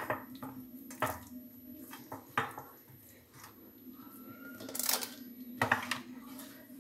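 Scattered knocks and clinks of a glass baking dish being handled on a granite countertop as raw beef is pressed onto sliced potatoes, with a short scrape about five seconds in and a few quick knocks after it. A low steady hum runs underneath.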